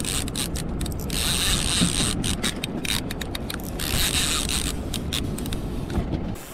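Baitcasting fishing reel turning, its gears and ratchet whirring and clicking steadily, with a short break about two seconds in.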